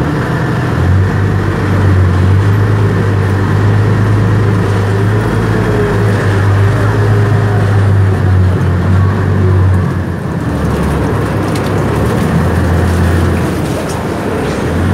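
Cross-river ferry's engine running with a steady low drone that eases off briefly about ten seconds in, then picks up again.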